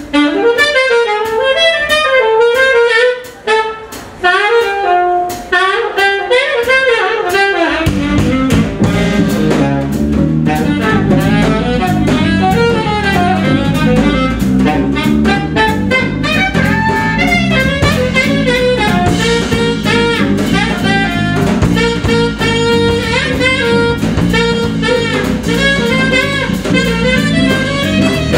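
Saxophone playing a jazz line over drums in a live jazz quintet. About eight seconds in, the bass and the rest of the band come in beneath it.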